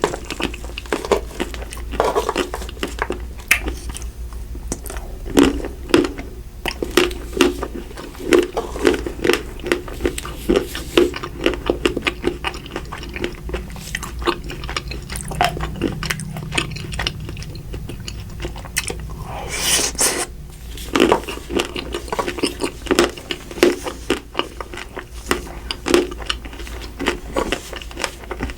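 Close-miked biting and chewing of Magnum double pistachio ice cream, with dense, irregular crunches of its hard chocolate layer and a brief hiss about two-thirds of the way through.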